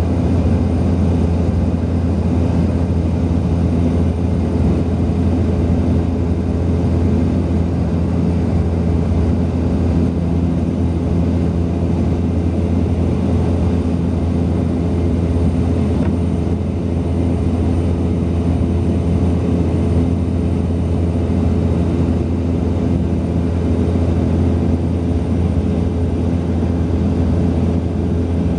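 Propeller airplane in cruise, heard from inside the cabin: a steady engine drone with a strong low hum and a few steady tones above it, unchanging throughout.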